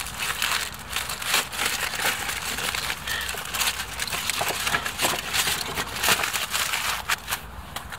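Aluminium foil crinkling and crackling as it is handled and peeled open by hand, in dense irregular crackles that stop near the end.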